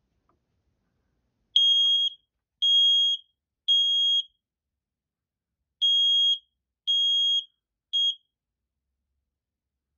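First Alert smoke alarm's horn sounding on test: two rounds of three loud, high, steady beeps with a pause between rounds (the temporal-three evacuation pattern). The last beep is cut short as the test stops.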